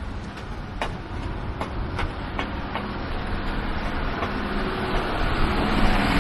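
Footsteps crunching on packed snow, about two to three steps a second, over the rumble of a road vehicle that grows louder as it approaches near the end.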